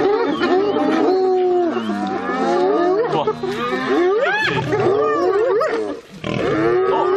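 A chorus of spotted hyenas calling over one another, with many overlapping whoops, giggles and yelps that glide up and down in pitch, mixed with a lioness's rough snarls as the hyenas mob her on her kill. The calling dips briefly about six seconds in.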